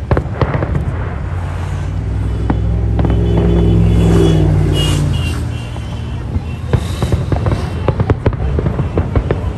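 Fireworks shells bursting overhead: a run of sharp bangs and crackles. A low droning sound swells and fades away in the middle.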